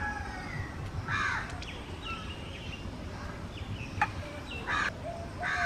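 Crow cawing a few times: short harsh calls about a second in and twice near the end.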